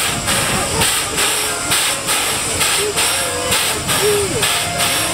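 Steam locomotive C11 207, a C11-class tank engine, standing in steam and hissing in even, rhythmic puffs of about two and a half a second.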